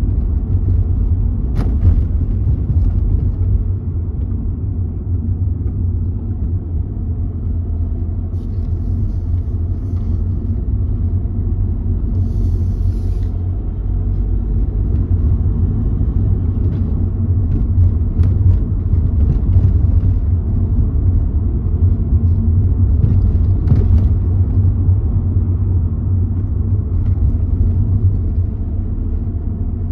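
Low, steady rumble of a car driving along, road and engine noise as heard inside the cabin.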